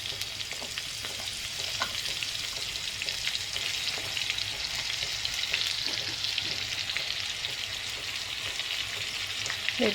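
Marinated crab pieces deep-frying in hot oil, freshly dropped in: a steady sizzle with scattered crackles and pops.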